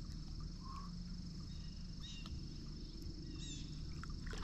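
A steady high-pitched insect trill, with a few short bird chirps over it.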